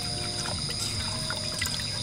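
Soft background music of a few held notes over a steady high-pitched insect drone, with rain pattering and trickling throughout.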